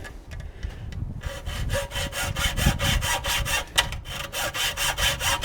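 Hand saw cutting with quick, even back-and-forth strokes, about four or five a second, starting about a second in, with a brief pause near the end.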